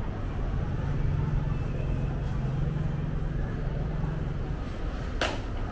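Market background noise: a steady low rumble with a low hum for a few seconds, and one sharp click near the end.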